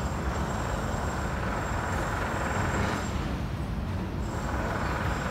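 Steady road traffic noise, a broad rumble that swells a little a couple of seconds in and eases off again.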